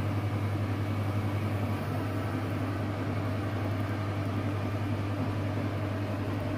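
A steady low hum with a light hiss over it, like a small motor or fan running, holding an even level throughout.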